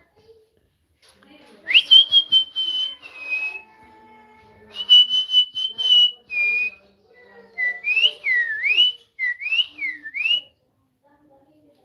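Parrot whistling: two long, high held notes, each dropping to a lower note at its end, then a run of quick swooping whistles that slide up and down.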